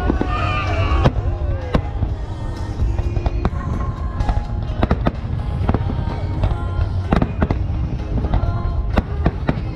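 Aerial fireworks display: a rapid, irregular string of sharp bangs and crackles, several a second, over a continuous low rumble of shell bursts, with music playing underneath.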